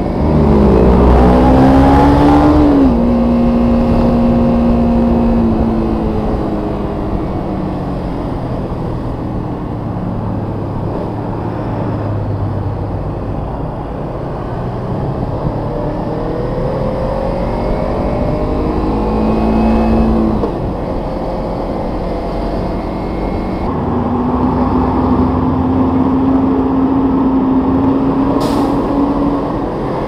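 Kawasaki Ninja 250 engine under way. It revs up at the start and drops back about three seconds in as it shifts up, then eases off. It pulls up in pitch again between about sixteen and twenty seconds and holds a steady higher note near the end.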